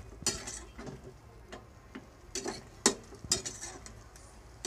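Metal spoon stirring pork pieces in a stainless steel pot, with short scrapes against the pot and scattered sharp clinks; the sharpest clink comes about three seconds in.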